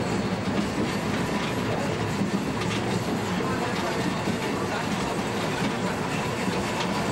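Interior running noise of a DR class 171 'Ferkeltaxe' diesel railbus under way, with its wheels clicking irregularly over rail joints. The track is the poorly kept track of a run-down branch line.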